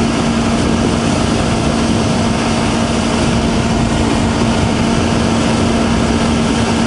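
Honda CBR250RR's parallel-twin engine running at a steady, unchanging note while the motorcycle is ridden, under heavy wind noise.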